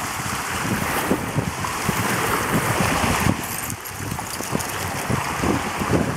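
Small waves washing and breaking on a pebbly lake shore, with a basset hound splashing as it wades through the shallows. Wind buffets the microphone in irregular low gusts.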